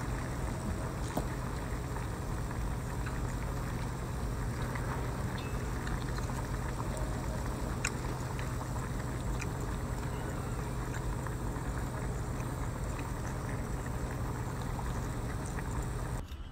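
A boat engine running steadily with a low drone and hum, and a few faint clicks over it; the sound cuts off suddenly near the end.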